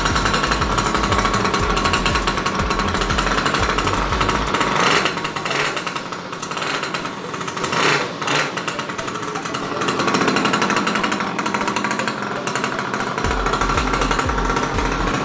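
Mini ATV's 50cc air-cooled single-cylinder two-stroke engine running with a rapid, even pulsing. It drops lower for a few seconds midway, then picks up again about ten seconds in.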